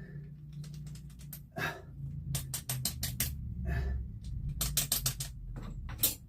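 Metal parts being handled and worked at a lathe: a run of sharp metallic clicks and taps, in quick clusters about two and a half seconds in and again around five seconds, over a low steady hum.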